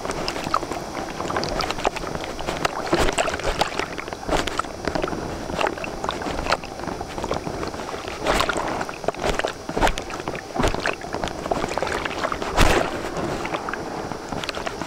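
Windsurf board sailing fast over wind chop: a continuous rush of water and wind broken by frequent hard slaps of the board on the waves, the loudest near the end.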